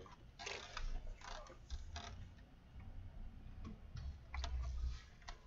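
Scattered, irregular light clicks and taps, with a few bursts of low rumble, the longest about four and a half seconds in.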